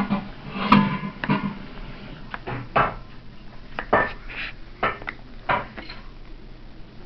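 Irregular clicks and clinks of a Phillips screwdriver working at the small screws in a computer's casing, about a dozen sharp taps spread over several seconds.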